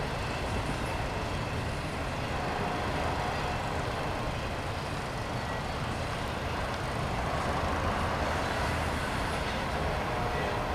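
Freight train rolling past on the rails: a steady rumble of wheels and cars with no horn.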